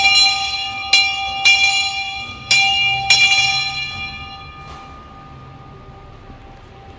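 Steam locomotive's boiler-top bell being rung by hand: about five uneven clangs in the first three seconds, then the ringing dies away.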